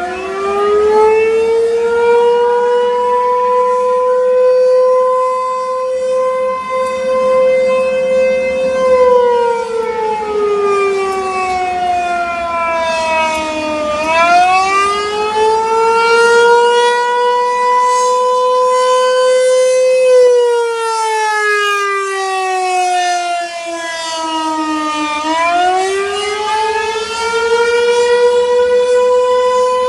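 ASC T-128 outdoor warning siren sounding a slow wail, the wail used for the Attack signal. Its tone climbs, holds at the top for several seconds, then sinks, repeating about every eleven seconds. The sound is loud and echoing.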